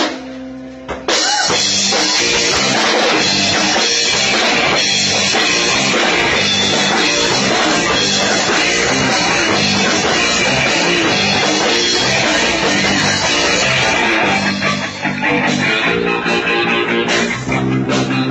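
Live rock band playing loud, with electric guitar and a drum kit. After a brief drop in the first second, the full band comes crashing back in.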